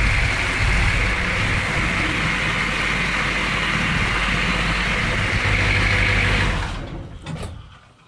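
M998A1 HMMWV's 6.2-litre V8 diesel engine idling steadily with a low rumble, then shutting off about seven seconds in and winding down to a stop within a second.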